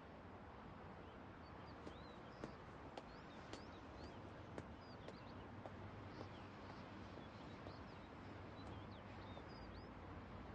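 Faint outdoor ambience: a steady low hiss with scattered short, high bird chirps throughout.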